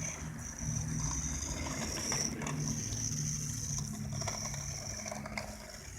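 A small motor whining steadily, with a low hum and light rattling clicks underneath.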